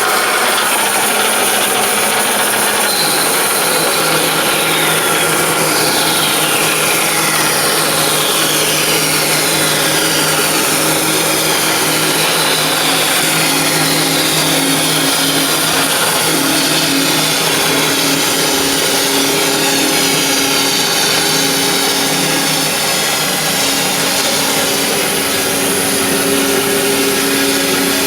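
Bandsaw running steadily and cutting a wooden board lengthwise to take about half an inch off its height.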